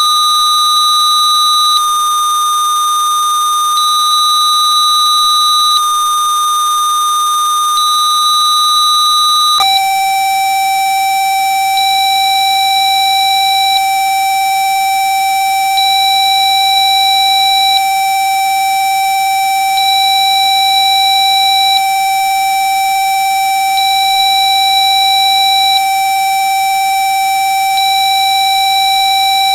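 Steady pure electronic tone of about 1217 Hz that switches abruptly to a lower steady tone of about 775 Hz about ten seconds in: Rife-style frequency-therapy tones made with tone-generator software. A fainter high tone switches on and off every two seconds, over a few faint steady high tones.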